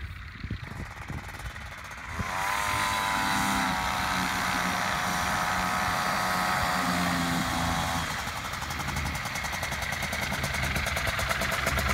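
Polini Thor 250 single-cylinder two-stroke engine of an ultralight plane running at taxi power with its propeller turning. It gets louder about two seconds in, and for the last few seconds its firing is heard as a fast, even pulsing.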